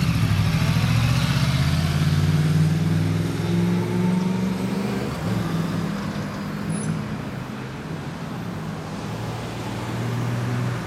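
2009 Yamaha YZF-R1's crossplane inline-four through a Yoshimura under-seat exhaust, pulling away and accelerating. Its pitch rises over the first five seconds, then the engine fades as the bike rides off.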